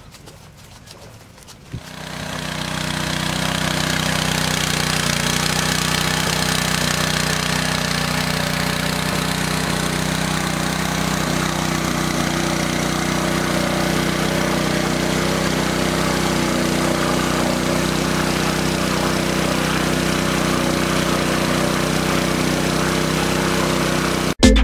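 Small engine-driven water pump running steadily at a constant speed, drawing water through a large hose. It comes in about two seconds in, after near-quiet.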